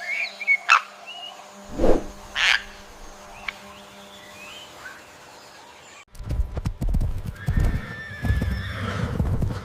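A few separate sharp toucan calls. About six seconds in, this cuts to a horse neighing over the thud of its hooves.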